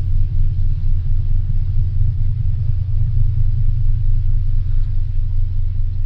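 Windstorm gusts buffeting the microphone: a loud, unsteady low rumble that swells and dips.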